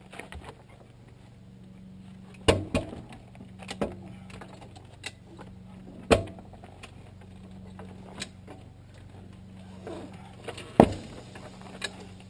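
Sharp knocks and clicks from working a farm jack to push the bead off a deflated 15.5-38 tractor rear tire on its rim: three loud knocks a few seconds apart, with lighter clicks between them, over a steady low hum.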